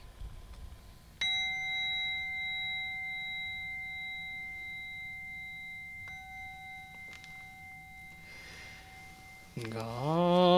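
A small Buddhist bowl bell (kin) is struck once about a second in and rings with a clear, layered tone that fades slowly. It is struck again, more lightly, about six seconds in. Near the end a man's voice begins chanting a sutra on a long held note.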